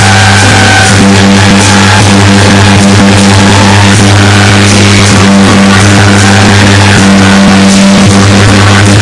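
Loud, distorted music from a festival loudspeaker, dominated by a steady low droning tone.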